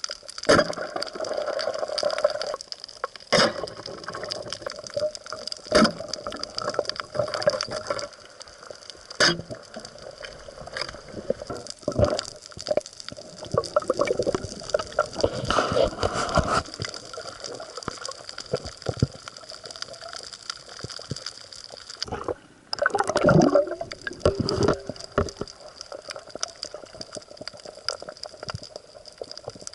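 Water gurgling and bubbling, with a steady hiss and scattered sharp clicks.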